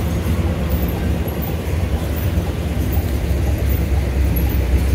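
Steady low rumble of a classic convertible driving, heard from inside the open car: engine, road and wind noise.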